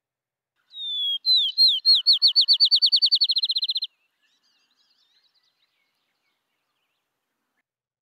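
Field sparrow singing one song: a slurred whistled opening note, then a series of downslurred whistles that speed up into a fast trill, lasting about three seconds and starting about a second in.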